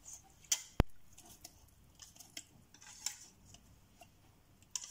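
Wire whisk stirring cornstarch into water in a stainless steel bowl to make a slurry: irregular clinks and scrapes of metal on the bowl, with a sharp click under a second in.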